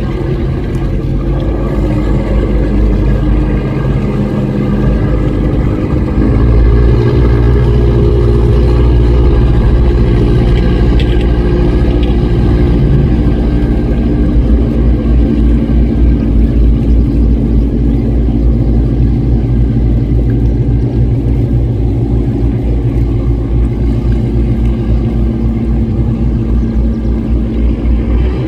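Riverboat (lancha) inboard engines running hard and steadily, getting louder about six seconds in.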